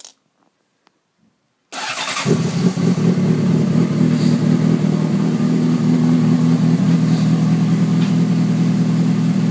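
Honda CBR600RR's inline-four engine, fitted with a modified twin exhaust, starting about two seconds in and settling straight into a steady idle.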